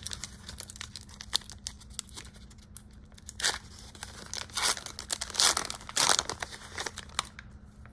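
The wrapper of a 2023-24 Donruss basketball card value pack being torn open by hand, crinkling in irregular rustles and sharper rips, loudest a few seconds in. It dies away shortly before the end as the cards come out.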